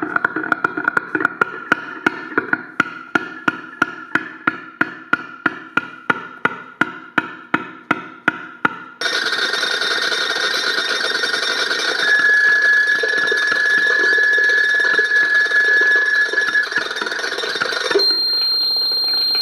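Structure-borne feedback between piezo contact-microphone discs and loudspeaker cones. For the first half a droning feedback tone is pulsed by sharp, even clicks, about three a second. After a sudden change it becomes a denser, buzzing feedback with a steady high whistle held for a few seconds, and near the end it turns to a thin, high ringing tone.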